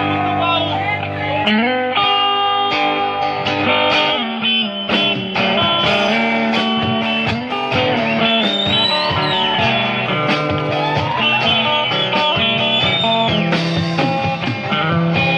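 Live band playing an instrumental passage: an electric guitar lead with bent, gliding notes over sustained bass notes and a steady drum beat, with no singing.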